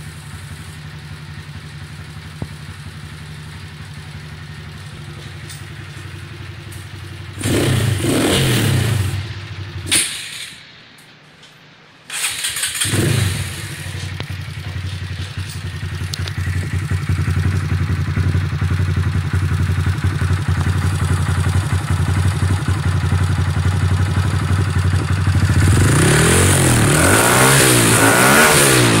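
Honda Grom's 125 cc single-cylinder engine idling at about 1,400 rpm, then revved once, about seven seconds in. A couple of seconds later it dies away and starts again abruptly. It then idles up slowly, and near the end it is blipped several times in quick rising-and-falling revs.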